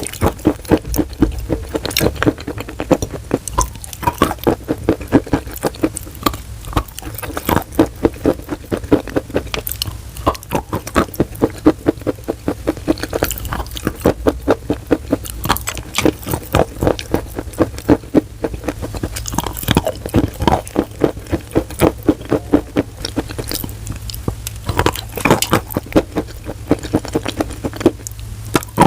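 Wet chalk being chewed: a steady run of wet crunches, several a second.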